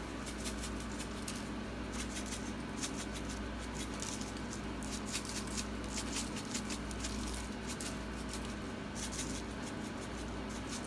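Everything bagel seasoning shaken from a shaker jar onto cabbage steaks in a baking pan: repeated short bursts of light rattling and pattering of seeds.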